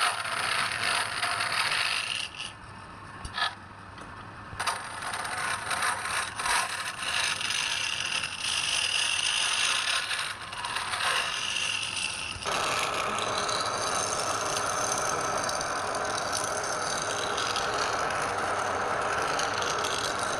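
Woodturning work: irregular scraping and clattering of tools on wood, which becomes a steadier, continuous scraping noise about twelve seconds in.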